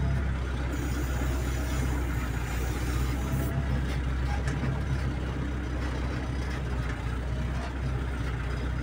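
Hydra pick-and-carry crane's diesel engine running steadily with a deep, even hum while the crane drives with a suspended load, heard from inside the cab.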